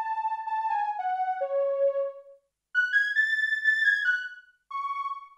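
Roland MC-909 groovebox synth tone playing a short melodic phrase from its pads, then the phrase again about an octave higher, ending on a single short note. Cutoff key follow is set so the filter tracks the notes, keeping the tone's character the same across octaves.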